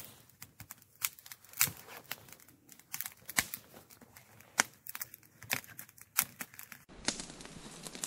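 Small campfire of split wood and kindling crackling, with sharp irregular pops and snaps.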